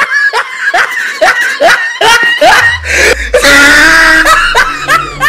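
Hearty, shrieking laughter in quick rising bursts, ending in a long high-pitched squeal. A deep low rumble comes in under it about three seconds in.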